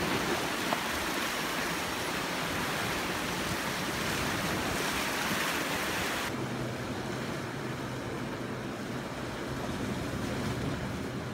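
Sea waves washing against a rocky shore, a steady rushing hiss. About six seconds in the sound changes abruptly: the hiss drops away and a faint steady low hum comes in under the water sound.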